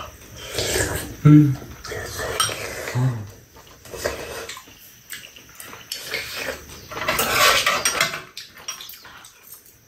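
Metal spoons clinking and scraping against bowls and a frying pan as two people eat, with eating noises and two short low vocal sounds about one and three seconds in.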